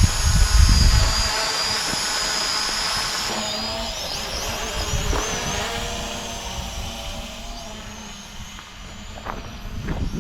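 Small quadcopter drone's propellers whining, with a high pitch that wavers as it manoeuvres. The whine fades as the drone moves off and grows louder again near the end. There is a burst of low wind rumble on the microphone at the start.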